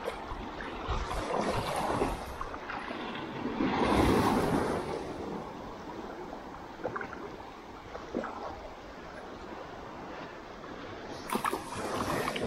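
Small surf breaking and foaming around a sea kayak's bow as it runs in to the beach, with surging washes of water, the loudest about four seconds in. It is quieter for a while afterwards, with a few light knocks, and louder again near the end.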